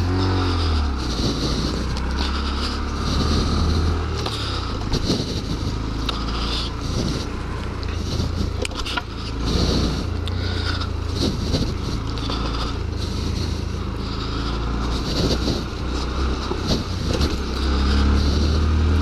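Honda Grom's small single-cylinder four-stroke engine running under throttle, its revs rising and falling, with wind noise on the helmet microphone and scattered knocks.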